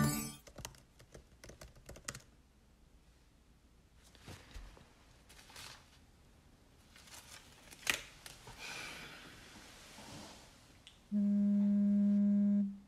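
Typing on a laptop keyboard: a quick run of key clicks, then scattered single keystrokes. About eleven seconds in, a smartphone vibrates against the desk with a steady buzz lasting about a second and a half, the loudest sound.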